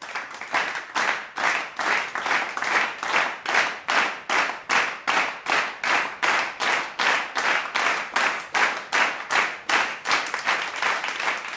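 Concert audience clapping in unison, a steady beat of about two and a half claps a second with no music under it.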